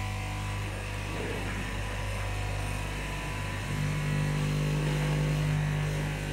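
Electric straight-knife cloth cutting machine's motor running with a steady hum. About four seconds in, the hum shifts up in pitch and grows slightly louder.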